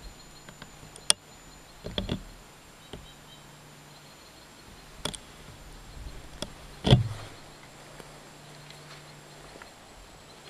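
Scattered sharp clicks and knocks over a quiet outdoor background: one about a second in, a short cluster near two seconds, and the loudest, a knock with a low thump, about seven seconds in.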